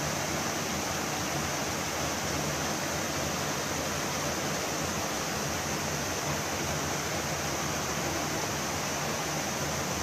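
Mountain creek cascading over boulders: a steady, even rush of water.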